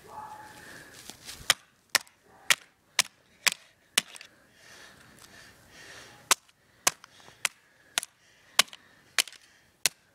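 Hammer striking an empty aluminium soda can lying on grass, flattening it: sharp blows about two a second, six in a run, a pause of about two seconds, then seven more.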